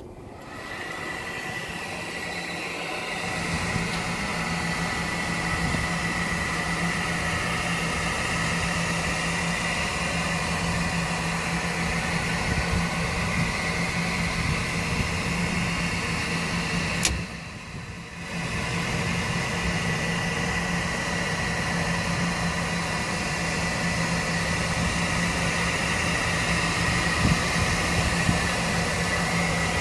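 Lennox rooftop HVAC unit running: a steady machine hum with a constant high whine that builds over the first few seconds, briefly dropping away about two thirds of the way through before picking up again.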